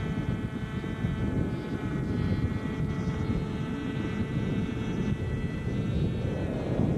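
Engine of a 550-size no-tail-rotor radio-controlled model helicopter running steadily in flight, a constant engine tone with many overtones, over an uneven low rumble.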